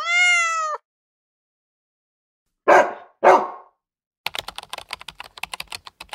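A dog gives a short drawn-out yelp, then barks twice about half a second apart. Then comes a fast run of computer-keyboard typing clicks.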